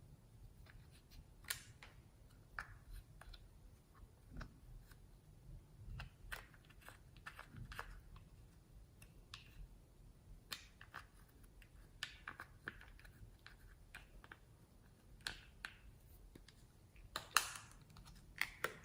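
Hands working slime, giving scattered soft sticky clicks and crackles, with a louder cluster of them near the end.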